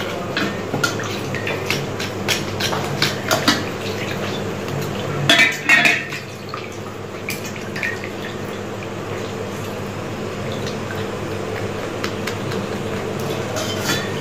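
A knife scraping the singed, blackened skin off a mutton trotter over a steel plate of water, with short clicks of the blade against the steel and some water sounds. A louder clatter comes about five seconds in, and after it the scraping goes quieter.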